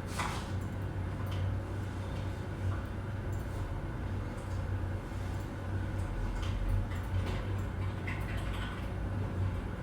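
Office ambience: a steady low hum with scattered light clicks and knocks, like drawers, cupboards and desk items being handled, and a brief low thud about two-thirds of the way in.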